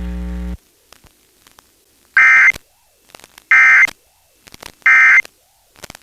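A steady electrical hum that cuts off about half a second in, then three short identical bursts of Emergency Alert System data tones (the warbling AFSK end-of-message code) about a second and a half apart, marking the close of the required monthly test.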